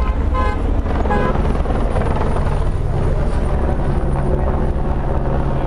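Steady low rotor rumble of a helicopter overhead, mixed with race-convoy cars driving past. A few short pitched calls sound in the first second and a half.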